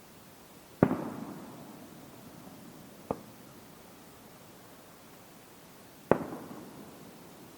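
Fireworks shells bursting in the air: three bangs, loud ones about a second in and about six seconds in, each trailing off over about a second, and a shorter, fainter one around three seconds in.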